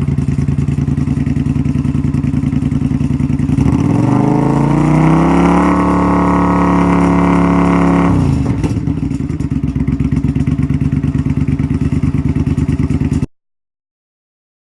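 Suzuki Intruder Classic 400's V-twin engine running through a Kentec lowrider muffler: steady idle, revved up about four seconds in and held high for a few seconds, then settling back to idle around eight seconds. The sound cuts off abruptly near the end.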